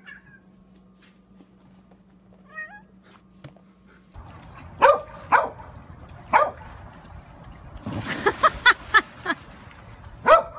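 Short animal cries from a pet: a few spaced cries, then a quicker run of them near the end.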